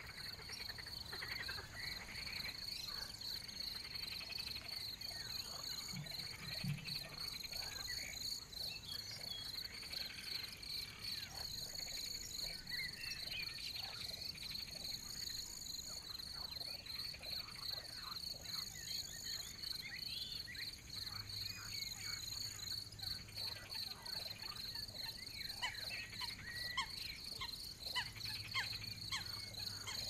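Pond chorus of frogs, insects and birds. A steady high pulsing trill runs throughout, a higher short buzz repeats every three to four seconds, and birds chirp and call over it. A low drone comes in twice in the second half.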